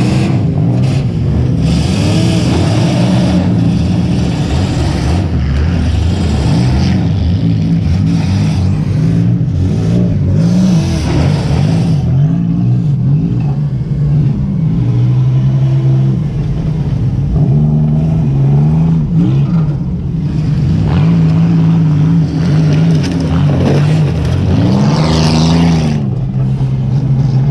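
Demolition derby car's engine heard from inside the car, revving up and dropping back again and again. Loud stretches of rushing noise come over it at times.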